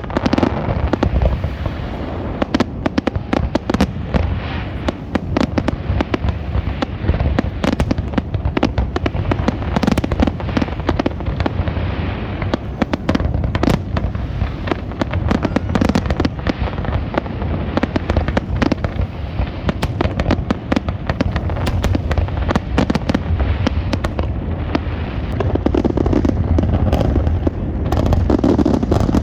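Continuous rapid crackling and popping, thick with sharp bangs that never let up.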